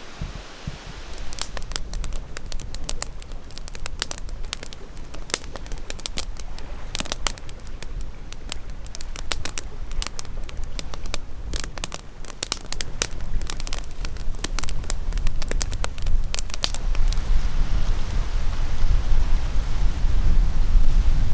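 Campfire crackling, with dense irregular sharp pops that die away about three-quarters of the way through, while a low rumble swells toward the end.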